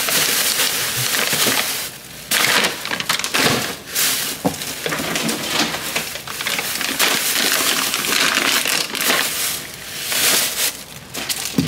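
Plastic grocery packaging crinkling and rustling as it is handled and set down on a countertop: a plastic pouch of pineapple chunks and a thin plastic produce bag of spinach. The crinkling comes in uneven spells with brief lulls.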